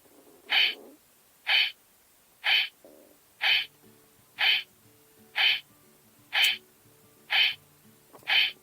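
Electronic sound effect from a CSM Kamen Rider 1 Typhoon transformation belt's speaker: a short pulse repeating about once a second, nine times, over a faint low hum.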